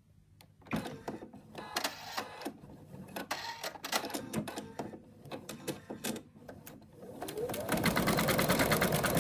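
Computerised embroidery machine: a run of irregular clicks and knocks, then about seven seconds in the machine starts, its motor whirring up in pitch, and settles into fast, even stitching. It is stitching out the white highlight in an embroidered eye.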